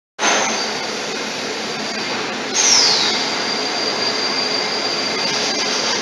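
Three-phase industrial vacuum cleaner running, its floor nozzle sucking up spilled liquid and debris. About two and a half seconds in, the suction gets louder and a high whistle drops in pitch, then holds steady.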